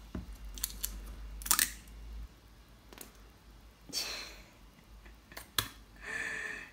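Plastic squeeze bottle of spicy mayo being opened and squeezed. A few light plastic clicks come as the small tip cap is pulled off. About four seconds in there is a spluttering squirt of the thick sauce with air, and another short squelch near the end.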